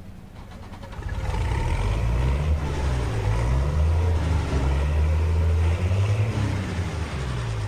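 Pulling tractor's engine running hard through a pull. It swells loud about a second in, its pitch wavers up and down, and it eases off near the end.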